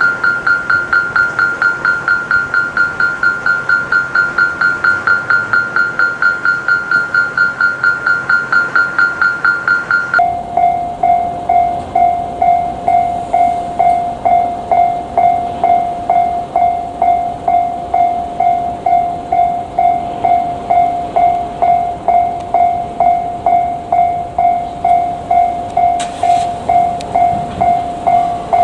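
Japanese level-crossing warning bell ringing in a steady, even rhythm. About a third of the way in it drops to a lower tone and a slower beat, with a low rumble underneath from then on.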